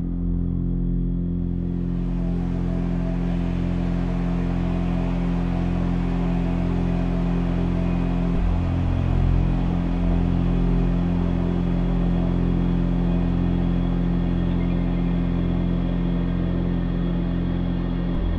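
Dark ambient drone: a deep, steady low hum of sustained tones with a hissing wash that swells in about a second and a half in. The low tones shift once about halfway through.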